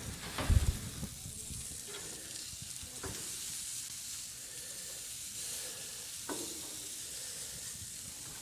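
Pork ribs sizzling steadily on a hot gas grill as they are turned with metal tongs, with a few light clacks of the tongs. A louder thump about half a second in.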